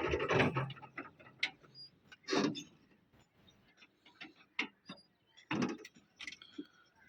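A bulldozer's engine sound dies away within the first second, leaving a series of scattered mechanical clicks and knocks, two of them louder.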